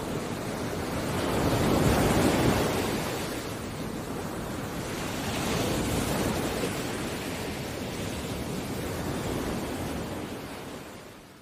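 Ocean waves washing in, a steady rush of surf that swells twice and fades out near the end.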